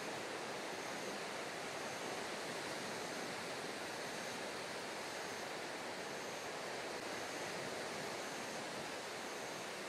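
Steady, even outdoor wash of sea water and wind, with faint short high-pitched peeps now and then.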